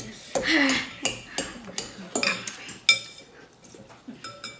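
Metal forks clinking and scraping against clear glass bowls as noodles are eaten, with a string of short ringing clinks in the second half. There is a brief vocal sound about half a second in.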